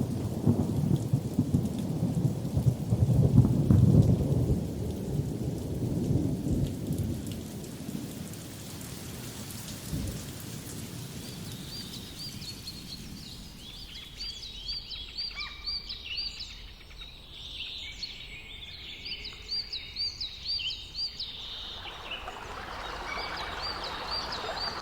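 Thunder rumbling over steady rain, the thunder loudest in the first few seconds. From about twelve seconds in, small birds chirp in short repeated high calls over the rain.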